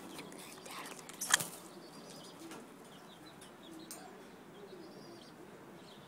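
Cockatiel moving and flapping its wings in a wire cage, with one sharp click about a second in. A few soft, short chirps follow.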